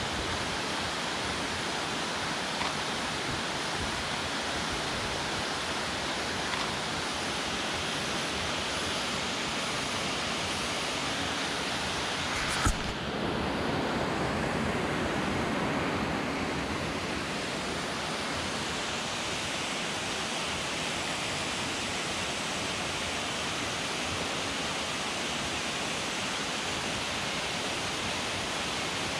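Steady rush of a waterfall's falling water, with a single sharp click a little under halfway through.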